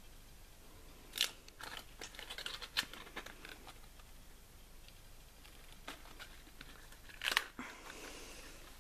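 Quiet handling of fireworks packaging: cardboard boxes and plastic wrap being picked up and set down, with a few sharp knocks and clicks, crackly crinkling in between, and a short rustle after the last knock near the end.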